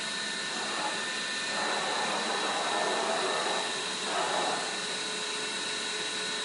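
A vertical machining center running: a steady mechanical whir and hiss with a high, steady whine, swelling louder twice around the middle.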